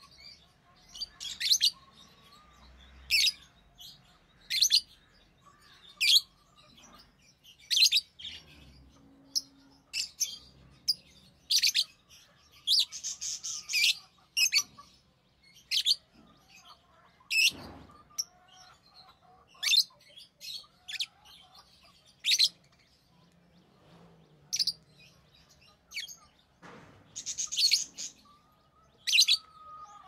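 Rosy-faced lovebirds chirping: short, sharp, high chirps about every second or so, with a longer run of chatter about halfway through and another near the end.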